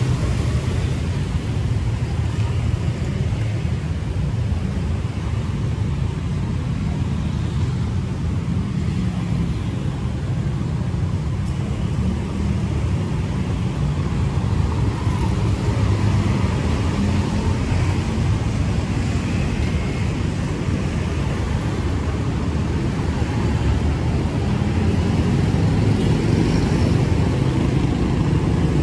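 Street traffic passing continuously, a steady low rumble of vehicle engines and tyres.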